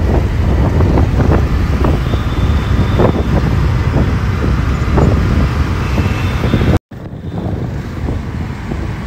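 Steady wind and road noise from riding a two-wheeler in city traffic, heaviest in the low end, with other vehicles around. The sound cuts out for an instant about seven seconds in and comes back a little quieter.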